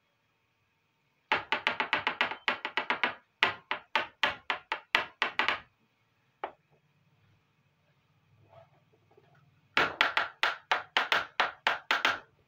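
Fast runs of sharp taps, about six a second, as miniature toy kitchen pieces are tapped and knocked on the tabletop. There are two long runs in the first half, a single tap in the middle and another run near the end.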